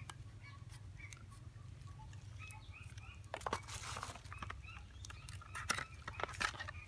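Plastic bag crinkling and rustling in short bursts as hands pull a wasabi tube out of it, with faint bird chirps in the background.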